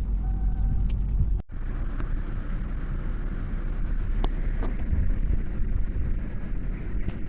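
A steady low rumble, broken by a sudden cut about a second and a half in, after which it carries on with a little more hiss and a few faint ticks.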